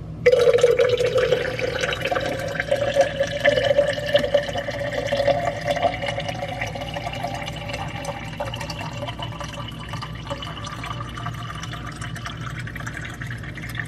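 Water running from the push-button spigot of a plastic water dispenser tank into a cup. The steady pour starts suddenly just after the start, with a tone that creeps slightly higher as the cup fills.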